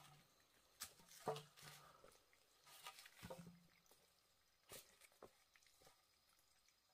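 Faint, scattered knocks and scuffs: rubber boots stepping on a dirt and gravel slope and bamboo tubes being handled and set down on the ground.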